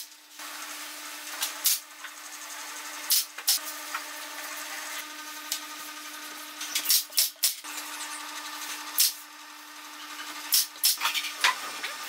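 Small wooden pieces being rubbed and tapped into place by hand on a pine birdhouse, with sharp wooden taps every second or two, some in quick pairs, over a steady low hum.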